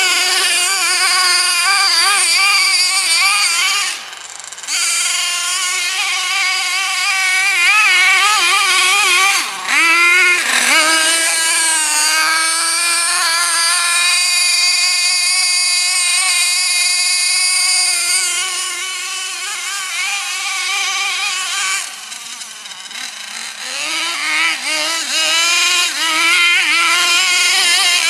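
Nitro glow engine of a Kyosho MTA-4 1:8 RC monster truck running at high revs, its high-pitched note wavering as the throttle is worked. It eases off briefly about four seconds in and dips sharply about ten seconds in. It runs lower for a couple of seconds after about twenty-two seconds, then revs back up.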